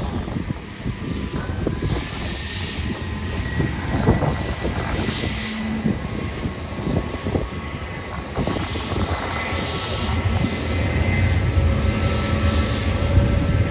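Airliner jet engines running at an airport apron: a steady low rumble under a thin engine whine, with one tone rising slightly early on and another edging up near the end.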